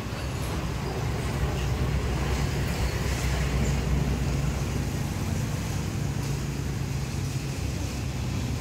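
Steady low rumble of motor vehicle noise, like road traffic or a running engine, with no sudden sounds standing out.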